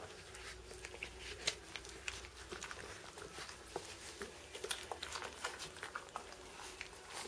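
Young Doberman puppies suckling from their mother: many small, irregular wet sucking and smacking clicks, over a faint steady hum.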